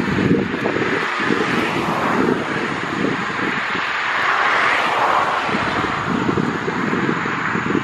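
Twin turboprop engines of a Bombardier Dash 8-200 running as it taxis past, with the propellers whirring over a rough low rumble. A hiss swells around the middle as the aircraft comes closest, then eases as it moves away.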